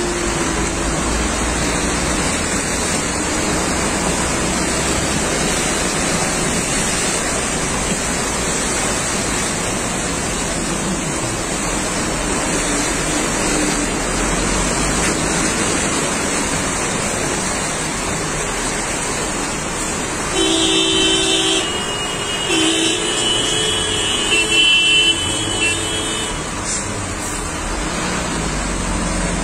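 Steady rushing noise of vehicles moving through fast-flowing floodwater on a road. About two-thirds of the way in, a vehicle horn honks in two bouts, the second broken into several toots.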